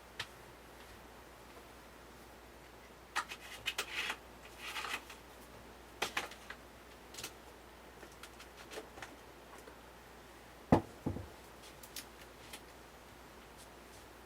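Scattered small clicks and short rustles, with one louder dull knock about eleven seconds in, followed by a smaller one.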